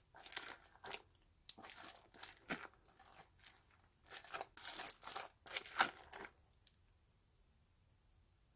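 Clear slime packed with foam beads being stirred and pressed with a plastic spoon, giving a run of short crackly, crunchy squishes that stop about six seconds in.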